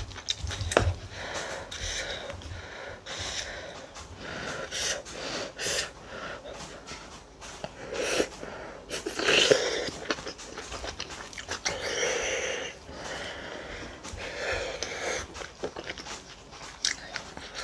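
Close-up eating sounds of rice and cheonggukjang stew: chewing and wet mouth noises in several louder bouts, with short clicks of a spoon and chopsticks against the bowls.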